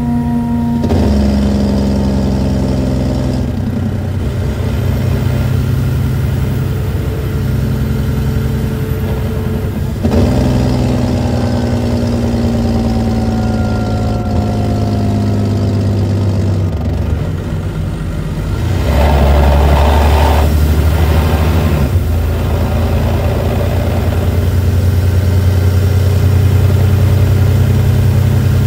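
Detroit Diesel Series 60 inline-six diesel of a 2008 MCI D4500CT coach, revved three times and falling back in pitch toward idle after each rev. The third rev, about two-thirds of the way through, is the loudest. The engine runs with a known exhaust leak.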